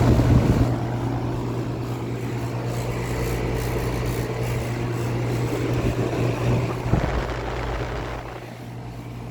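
2019 2-ton Rheem Classic RP15 heat pump outdoor unit running in cool mode: a steady low hum under the constant rush of its condenser fan, a little quieter near the end.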